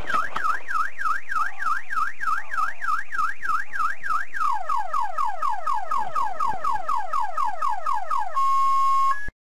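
Car alarm siren cycling through its tone patterns: a rapid up-and-down warble about four times a second, then a run of falling chirps from about five seconds in, then a steady tone, before it cuts off suddenly near the end.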